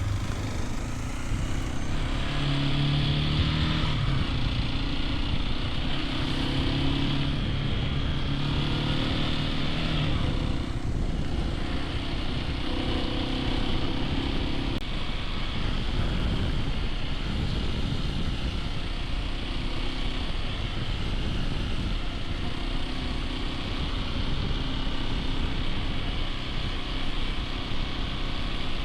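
Hero XPulse 210's single-cylinder engine running as the motorcycle is ridden, its note holding for a second or two at a time and then shifting.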